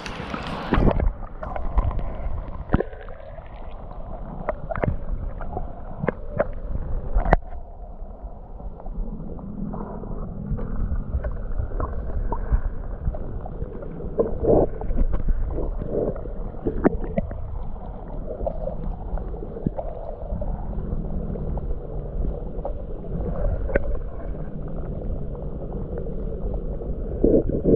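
River water rushing and gurgling, heard muffled through a camera held underwater in a stream, with scattered sharp knocks.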